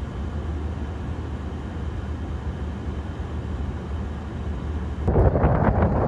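Stationary pickup truck's engine idling, a steady low rumble heard inside the cab. About five seconds in, loud gusting wind buffeting the microphone takes over.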